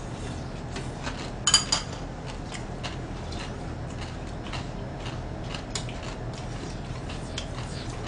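Metal spoons and chopsticks clicking and scraping against ceramic bowls as two people eat, with a sharper clatter about a second and a half in.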